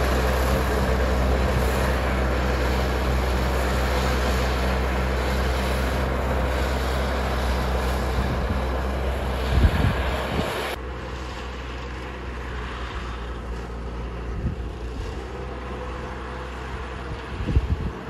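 Engine-driven harvesting machinery running steadily, a constant mechanical roar over a low engine hum. About eleven seconds in, the roar drops abruptly to a quieter engine hum, with a couple of brief knocks near the end.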